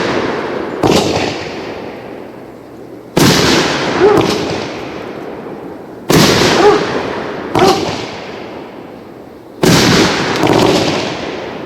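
Consumer multi-shot aerial firework cake firing: a sharp loud bang every one to three seconds, each fading out over a couple of seconds as a rumbling, crackling tail.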